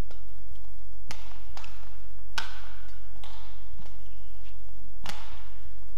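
Badminton rackets striking a shuttlecock back and forth in a rally: about five sharp cracks, roughly a half-second to a second apart, over a steady low hall hum.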